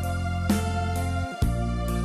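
Instrumental background music with a steady beat, a new note or chord about every half second over deep bass.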